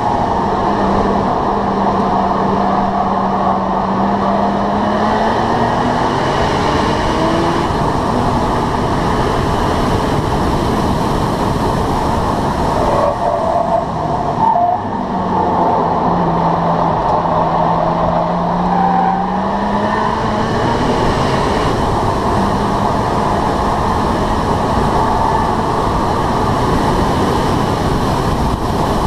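Porsche 996 GT2's twin-turbo flat-six at full racing pace, its note climbing under throttle early on, breaking off briefly about halfway through and climbing again. It sits under a steady loud rush of wind and tyre noise picked up low on the car's front lip.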